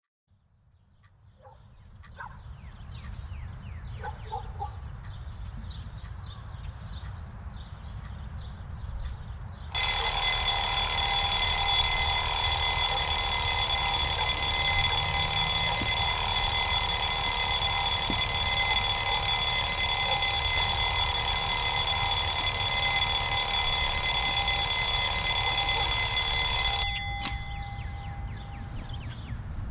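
Wind-up alarm clock ringing loudly and without a break for about seventeen seconds, then cut off abruptly.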